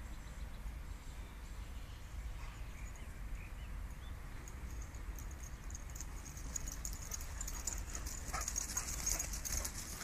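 Two dogs, one a Doberman, chasing each other on grass: quick paw falls and rustling that start about halfway and grow louder near the end as they run close, over a steady low rumble of wind on the microphone.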